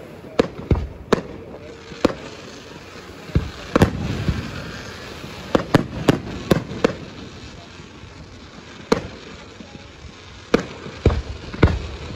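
Fireworks display: aerial shells bursting in a string of sharp bangs at irregular intervals, about fifteen in all, several coming in quick clusters.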